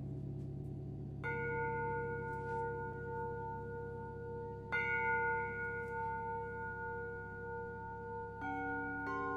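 Singing bowls struck one after another, four strikes about a second, five and eight seconds in, each ringing on and overlapping the last over a low, lingering ring.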